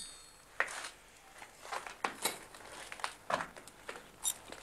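Scattered light knocks and clinks as metal tools and small objects are handled at a workbench. One click near the end has a brief ring.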